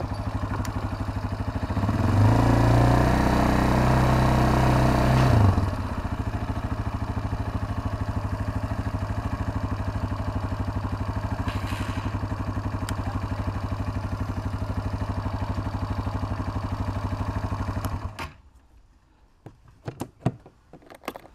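K-Lion Commander 200 ATV engine running, revving up for a few seconds about two seconds in, then settling to a steady idle. It shuts off near the end, leaving a few light clicks and knocks.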